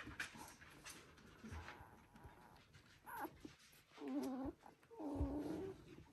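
One-week-old Border Collie puppies squealing: a short rising squeak about three seconds in, then two longer whining squeals about four and five seconds in, over faint rustling.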